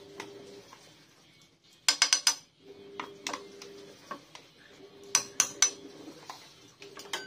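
Wooden spatula stirring a thick cheese sauce in a nonstick frying pan, knocking and scraping against the pan in short clusters, loudest about two seconds in and again around five seconds in.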